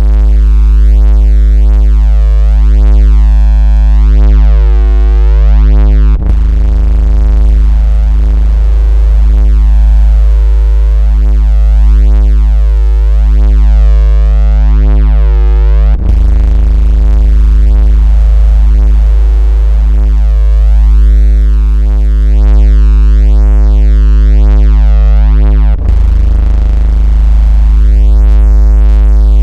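Loud, steady electronic 56 Hz bass tone, buzzing with overtones, made to mimic a vibrating phone. It breaks with a brief click three times, about ten seconds apart.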